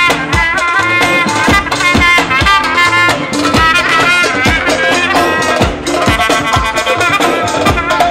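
Trumpet playing an ornamented Bulgarian-style Romani dance tune (Roman havası) over a steady beat of darbuka and drums, live and amplified.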